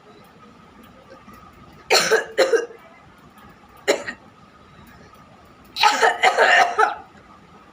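A person coughing on purpose: two harsh coughs about two seconds in, a single cough near four seconds, then a longer fit of several coughs around six seconds.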